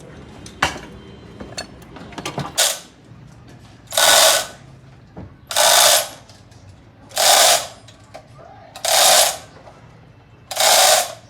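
A few sharp clicks, then a run of even hissing or rasping strokes, each about half a second long and about a second and a half apart, from hand work on engine parts during an engine overhaul.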